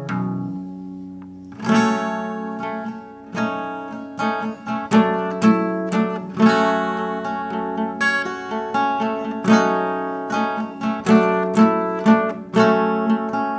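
Acoustic guitar played solo with no singing: a chord rings out and fades, then picked notes and chords resume about two seconds in and carry on at an unhurried pace.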